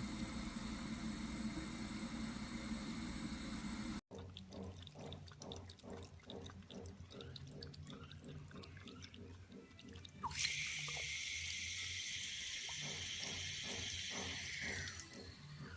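Water running from a tap while a cat drinks from it, lapping quickly and regularly at about three laps a second. About ten seconds in, the louder hiss of a tap stream starts suddenly and runs until near the end.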